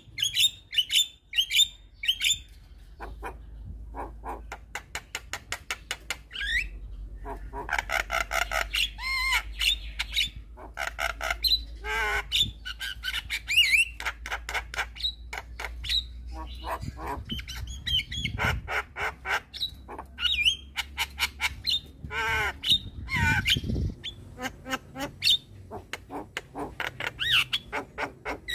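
Javan myna (jalak kebo) singing a fast, varied song of rapid clicking notes, gliding whistles and harsh squawks.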